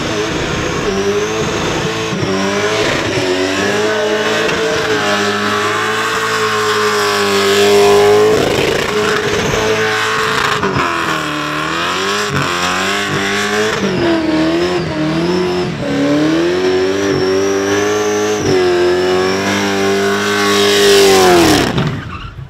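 Supercharged Holden Commodore burnout car's engine held at high revs during a burnout, its pitch wavering with repeated dips and recoveries, over the noise of spinning tyres. Near the end the revs fall away and the engine note drops off suddenly.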